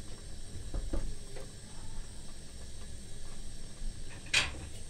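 Hands placing lemon slices into a glass jar of collard-green pickle: a few soft knocks about a second in, then a short, sharper clatter near the end as kitchen things are handled.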